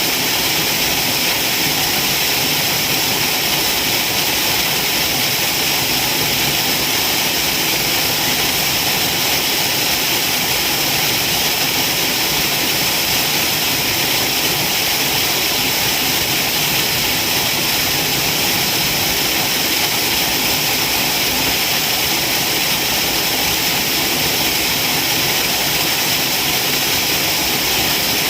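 Waterfall: falling water making a steady, even rush, mostly a high hiss, with no change in level.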